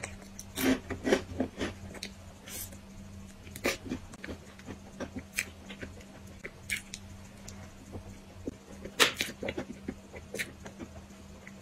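Close-miked chewing and biting of a soft cream-filled crepe pastry: irregular wet mouth clicks, with the loudest clusters about a second in and about nine seconds in.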